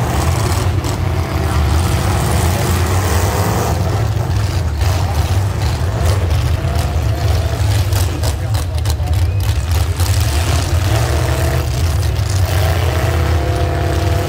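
Demolition derby cars' engines running and revving in the arena: a loud, steady low rumble.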